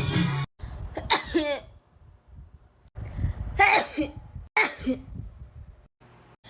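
A woman sneezing, several separate sneezes in a row, each a sharp burst followed by a short voiced cry, several of them cut off abruptly.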